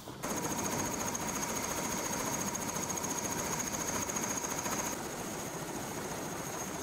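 Helicopter running on the ground: a steady high turbine whine over a rapid, even rotor beat.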